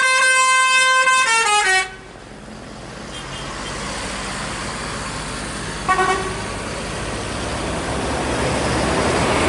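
A bus's telolet horn, a multi-tone musical air horn, plays a tune of changing notes and stops about two seconds in after a short falling run of notes. Then comes a rush of vehicle noise that grows steadily louder, with one short horn toot about six seconds in.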